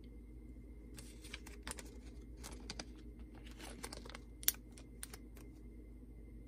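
Small plastic zip-lock bag of small plastic parts being handled: a string of light crinkles and clicks, the sharpest about two-thirds through.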